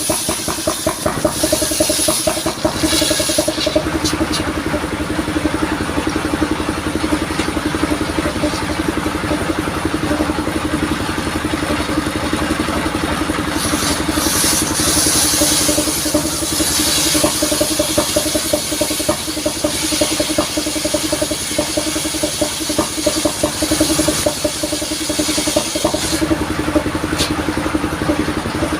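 Engine of a modified mobile sawmill running steadily at a constant speed, with patches of high hiss coming and going over it.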